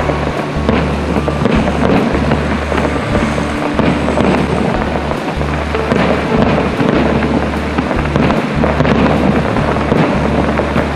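Fireworks display heard from afar: a steady rumble of aerial shell bursts with faint crackling throughout.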